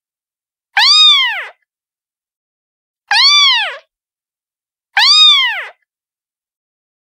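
Cat meowing three times, about two seconds apart. Each meow rises and then falls in pitch, and all three have the same shape, as if one meow recording is being repeated. There is dead silence between them.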